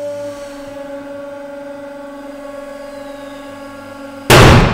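Hydraulic press running with a steady hum as the ram loads a steel ball bearing against an AR500 armor plate. A little over four seconds in there is a sudden loud bang as the ball bearing and the hardened steel press tool break under about 19 tonnes.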